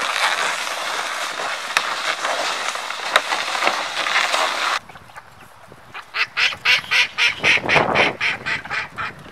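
A plastic sled loaded with hay and water buckets scraping over snow, cutting off suddenly a little under five seconds in. About a second later poultry call in a quick run of short, loud notes, about four a second.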